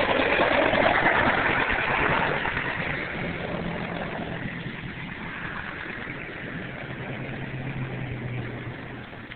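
AH-64 Apache attack helicopter flying low, its rotor and engine noise loudest at first and fading steadily as it moves away.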